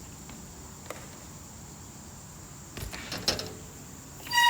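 BMX bike being ridden on skatepark concrete: a few sharp knocks about three seconds in, then a short, loud squeak near the end.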